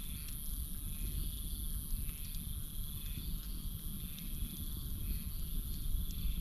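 Campfire burning with a low rumble and scattered sharp crackles, under a steady high drone of night insects and a chirping call that repeats about once a second.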